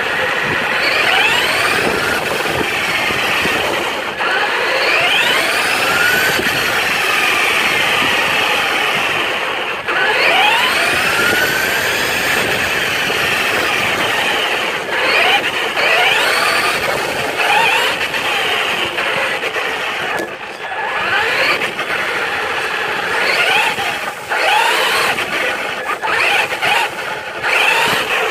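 Traxxas Rustler RC truck's electric motor and gears whining, the pitch rising and falling again and again with throttle, over a steady hiss of tyres on wet pavement, picked up close by the truck's onboard camera.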